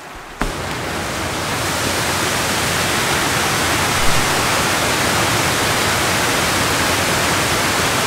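Waterfall in full flow, a loud, steady rush of white water that starts abruptly just under half a second in, with one brief bump about four seconds in.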